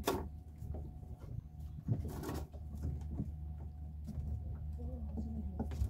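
A low steady motor hum, with several sharp knocks and clatters on the wooden boat, the loudest about two seconds in.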